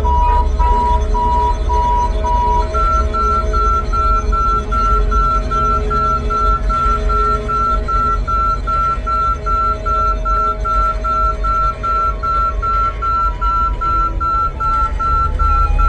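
Electronic alarm beeping, a fast run of short identical beeps at about two to three a second, stepping up in pitch about three seconds in, over a steady low drone.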